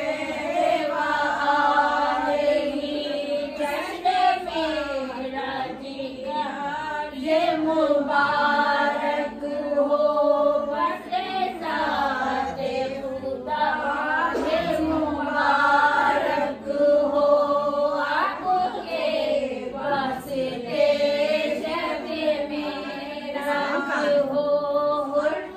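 A group of women singing a devotional chant together, unaccompanied, in long held notes with short breaks between phrases.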